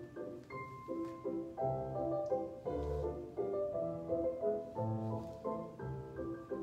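Piano music for a ballet barre exercise, with notes and chords played over bass notes in a steady beat.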